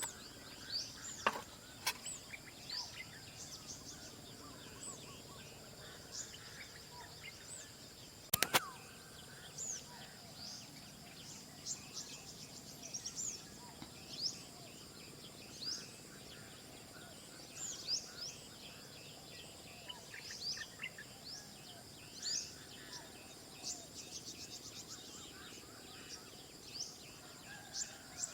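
Many wild birds calling with short chirps and whistles over a steady high insect drone. A few sharp clicks cut in, the loudest a quick pair about eight seconds in.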